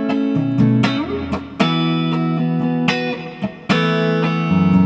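Gibson Les Paul electric guitar played: picked chords and single notes ringing out, with a fresh pick attack every second or so.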